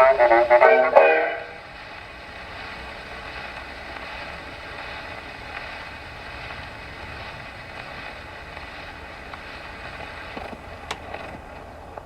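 The closing notes of a 1920s dance-band vocal record on an HMV 102C wind-up portable gramophone, stopping about a second and a half in. Then the steady hiss of the needle running on in the shellac 78's run-out groove.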